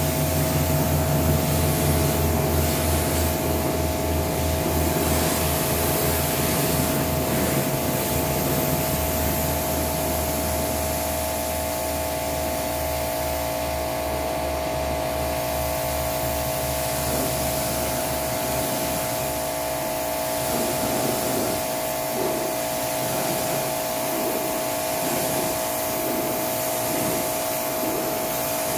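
Pressure washer running with a steady whine and low pulsing hum from its motor and pump, its water jet hissing as it sprays down the car.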